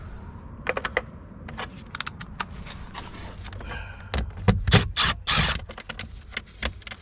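Small metal clicks and rattles of hand tools and Torx bits being handled, with a few louder knocks and a short scrape about two-thirds of the way in.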